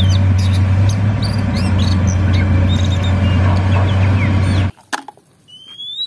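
Komatsu hydraulic excavator's diesel engine running steadily as it digs, a low even drone with birds chirping over it. It cuts off suddenly near the end.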